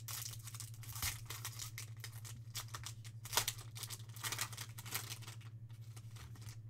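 Foil wrapper of a 2020 Topps Stadium Club baseball card pack being torn open and pulled apart by hand: a run of short, irregular crinkles and rips, the sharpest about three and a half seconds in, over a steady low hum.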